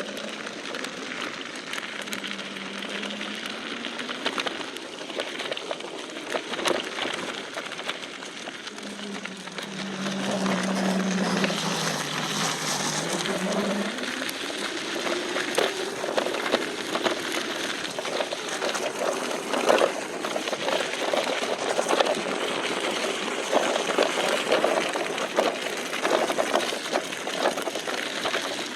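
Battery-powered electric go-kart driving over a rough, rocky dirt track. The motor's whine falls and then rises in pitch with speed, over a continuous crunching and clattering of the wheels and frame on stones and dirt.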